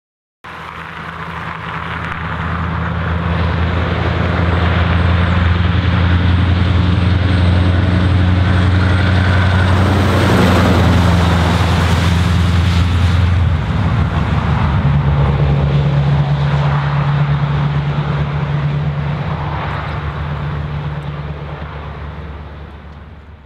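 Scania R500 truck's V8 diesel on straight pipes, pulling a trailer past. The engine note swells to its loudest around the middle. About halfway through it dips briefly and shifts to a higher note, then it fades as the truck drives away.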